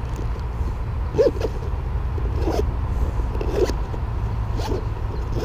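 Zippers on a fabric fishing sling bag being pulled open and shut in several short strokes, over a steady low rumble.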